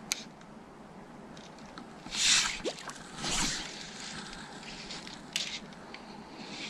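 Fly line swishing through the air during false casts with a fly rod: two short whooshes about a second apart, followed by a light click.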